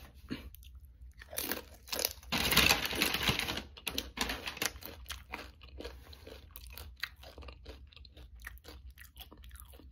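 A person biting into and chewing crunchy food close to the microphone. The crunching is loudest about two to three seconds in, then goes on as quieter crunchy chewing.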